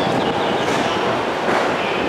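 JR electric commuter train pulling out of the station and moving off along the platform, with a steady noise from its wheels and motors.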